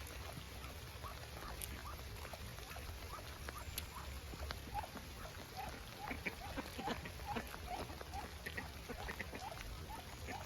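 Steady rain falling, with ducks giving many short soft calls over it, the calls growing busier about halfway through.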